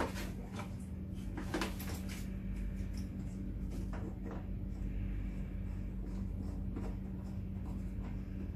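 Plastic hose fittings clicking and knocking as a garden hose is coupled to a pressure washer's water inlet: a cluster of clicks in the first two seconds, a few single ones later, over a steady low hum.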